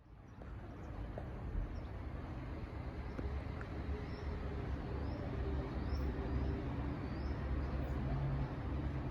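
Low rumble of an approaching freight train's diesel locomotives, slowly growing louder, with birds chirping.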